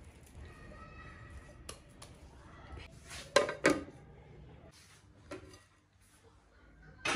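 A plate set down over a glass mixing bowl as a lid: two sharp clinks of plate on the glass rim about a third of a second apart, with soft handling rustle around them. Another clink comes right at the end as the plate is lifted.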